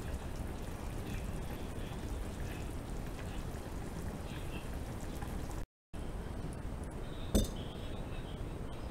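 Pot of nikujaga simmering on a gas burner: a steady hiss with faint, scattered bubbling. After a brief gap the steady hiss goes on, and near the end there is a single sharp clink.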